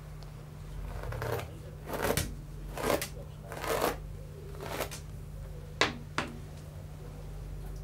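Rustling from something being handled: about five short swishes roughly a second apart, then two sharp clicks close together near the end, over a steady low hum.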